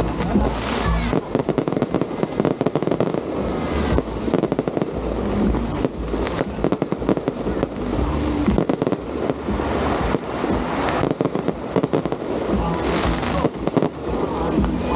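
Fireworks going off in a dense, unbroken run of rapid bangs and crackles.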